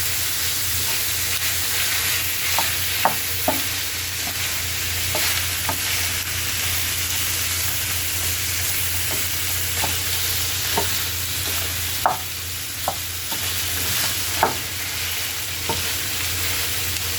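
Beef and onions sizzling steadily as they fry in a pan, with irregular clicks and scrapes of a utensil stirring and breaking up the meat against the pan.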